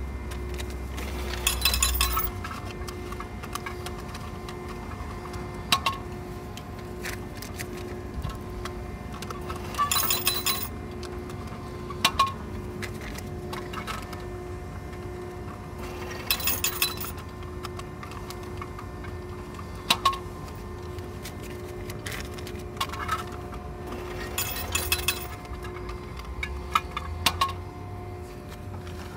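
Steady hum of car wash equipment with a tone that pulses about once a second. Every few seconds a short burst of sharp clinking cuts in, with single clicks between the bursts.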